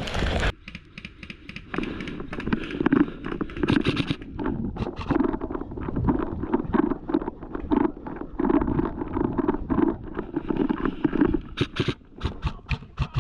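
A person running in footsteps, with gear rattling and jostling on the body in a quick, steady rhythm. Several sharper clicks come near the end.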